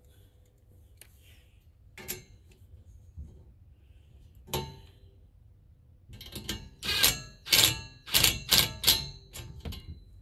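Cordless impact wrench fired in a quick series of short trigger bursts on a glider frame bolt, starting about six seconds in, only snugging it lightly so the plastic spacer just touches the frame. Two single knocks come before it.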